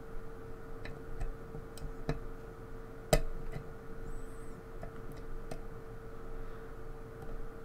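Lock pick tapping and lifting the pins of a pin-tumbler lock under tension, giving small irregular metallic clicks, with one louder click about three seconds in. A steady hum runs underneath.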